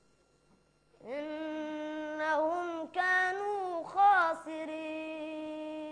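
A boy's voice reciting the Quran, chanted in long, held melodic phrases, starting about a second in, with two brief breaths between phrases.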